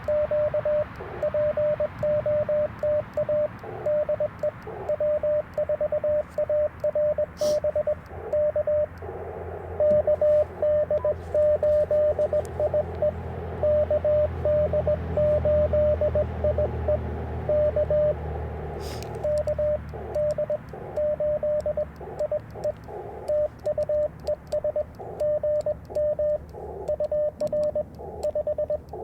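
Morse code from an Icom IC-705 transceiver: a single steady tone keyed on and off in dots and dashes. Clean tone stretches sound like the sidetone of the operator's own sending, while a stretch in the middle comes through with receiver hiss, a station being received; sharp clicks come just before and just after that stretch.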